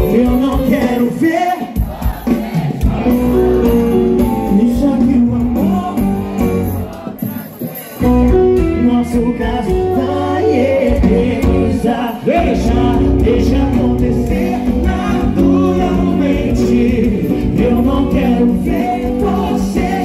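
Live band playing amplified dance music, with a male singer and electric guitar over a heavy bass. The music drops quieter about six seconds in and comes back in full at about eight seconds.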